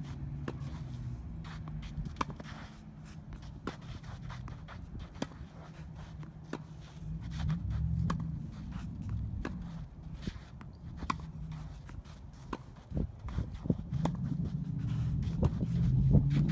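Tennis balls being struck by racquets and bouncing on a hard court during a rally: sharp pops every second or two, with scuffing footsteps on the court, over a steady low rumble.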